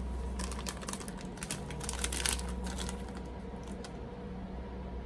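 A plastic snack wrapper crinkling and crackling as it is handled and turned over. The crackles come in a dense run from about half a second in to about the middle, with scattered ticks after, over a steady low hum.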